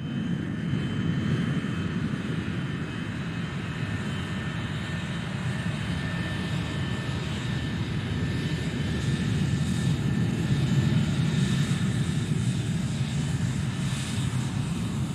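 Airport ambience: a steady low rumble of aircraft engines, with faint steady high whining tones above it.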